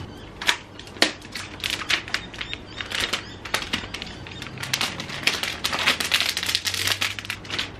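Packing material coming off a new iMac: a white foam sleeve lifted away, then clear plastic protective film peeled from the screen, crinkling and crackling in many quick sharp rustles.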